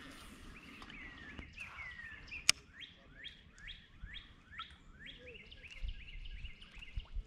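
A songbird singing: a few slurred whistles, then a run of repeated notes that each sweep downward, about two a second. A single sharp click about two and a half seconds in.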